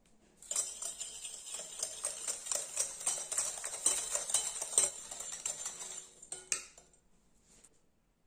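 Wire whisk beating egg and sugar in a glass bowl, its wires rattling fast against the glass. The rattling starts about half a second in and stops about a second and a half before the end.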